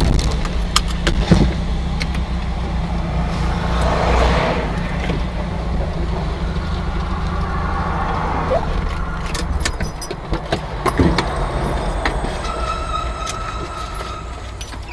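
A car driving: steady engine and road noise with scattered small clicks and rattles. The low hum thins out about two-thirds of the way through.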